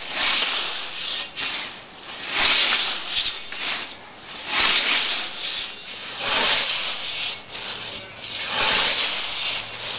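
Scythe with an 85 cm blade swishing through a dense stand of young dandelions and white clover, about five strokes, one every two seconds or so.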